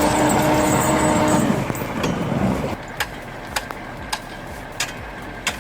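A truck engine running at a steady pitch, then fading away about two seconds in, leaving a quieter background with sharp ticks about twice a second.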